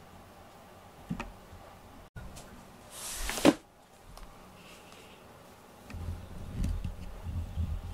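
A short rush of rustling ending in a thump about three and a half seconds in, then low, uneven rubbing as a hand strokes a cat lying on a cushion.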